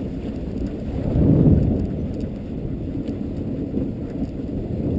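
Dogsled gliding over snow: a steady low rumble from the runners and the moving sled, swelling briefly about a second in.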